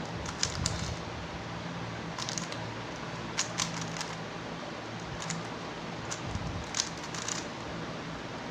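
A 3x3 Rubik's cube being turned by hand, its plastic layers giving scattered light clicks, a few at a time with pauses between, over a low steady hum.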